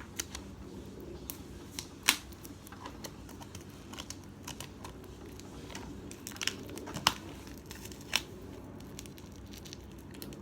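A packet of sticky notes being opened and handled: crinkling and tearing of its wrapping, with scattered light clicks and a few sharp snaps, the loudest about two seconds in.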